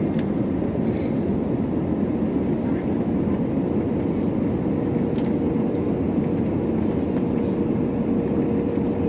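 Steady noise of an airliner's jet engines and rushing air, heard inside the passenger cabin. A faint steady hum joins in about five seconds in.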